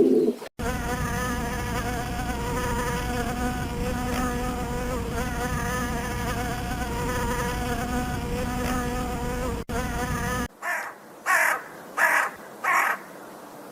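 A flying insect buzzing steadily for about ten seconds with a slightly wavering pitch, then an abrupt cut to a crow cawing four times near the end.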